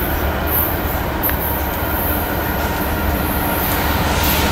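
BNSF freight train with several diesel locomotives approaching: a steady low engine rumble that grows slightly louder toward the end as the train nears.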